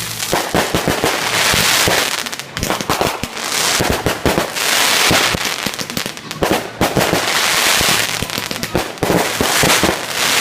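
Fireworks going off in rapid succession: a dense string of bangs and pops, with several stretches of thick hissing crackle each lasting about a second.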